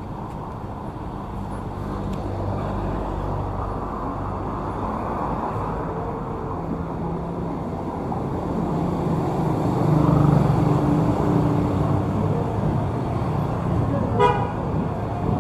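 Street traffic: motor vehicle engines running and passing, one growing louder about two-thirds of the way in. A short horn toot sounds near the end.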